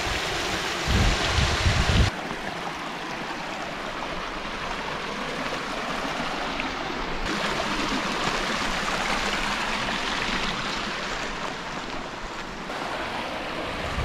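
Small spring-fed mountain stream trickling and splashing over rocks: a steady rush of running water. Its sound shifts abruptly about two, seven and thirteen seconds in, and there are low rumbling bumps in the first two seconds.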